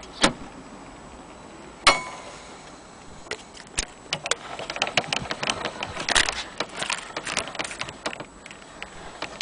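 Handling noise from an HMV Model 101 portable gramophone: a sharp click about two seconds in, then a few seconds of irregular clicks and light metal rattles around the case and its winding crank.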